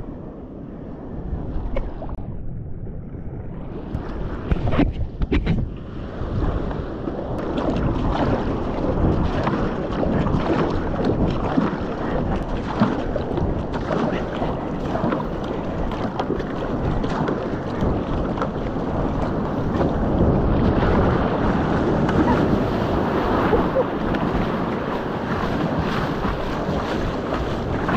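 Water rushing and splashing against a fishing kayak as it is paddled in through the surf, with wind buffeting the microphone. The sound grows louder after the first few seconds, and near the end breaking white water surges around the hull.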